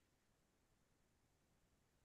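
Near silence: a pause in the narration with only a faint noise floor.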